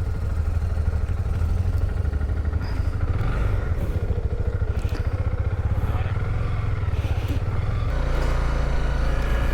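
Motorcycle engine running at low revs, a steady low rumble whose note changes about eight seconds in.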